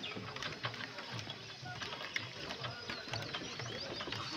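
Footsteps on the wooden plank deck of a small suspension bridge, with many light clicks and rattles from the deck and its fittings.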